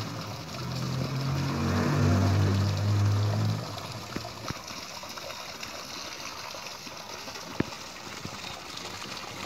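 Water trickling steadily. For a few seconds near the start a low motor hum rises over it, then cuts off abruptly, and near the end there is a single sharp click.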